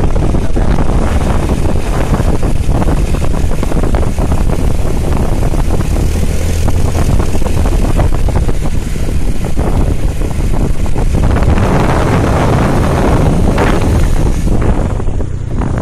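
Loud, steady wind rumble on the phone microphone, mixed with the running of a motorbike engine, as the bike moves along the road.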